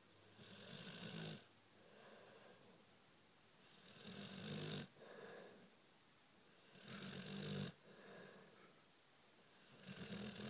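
Blue-nose pit bull snoring in its sleep: four loud snores about three seconds apart, each building up and cutting off sharply, with a softer breath out between them.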